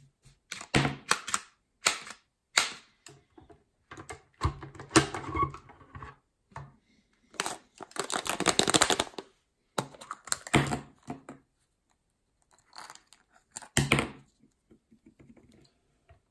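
Hard plastic toys being handled: a toy grabber claw and a plastic surprise egg clicking and clacking in scattered short knocks, with a denser rattle lasting about two seconds in the middle.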